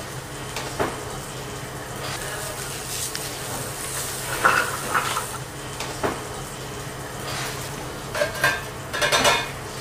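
Slice of foie gras sizzling as it sears in a hot frying pan, with a utensil clinking and knocking against the pan several times, a cluster of knocks near the end.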